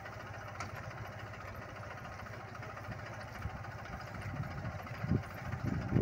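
Captain 250 mini tractor's diesel engine running steadily while it pulls an inter-row blade hoe through groundnut rows, with a few short louder bumps near the end.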